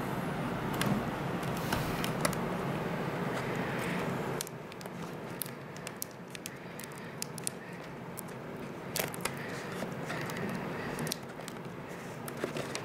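Duct tape crackling and crinkling with scattered small clicks as it is pressed and wrapped over the mouth of a plastic bottle.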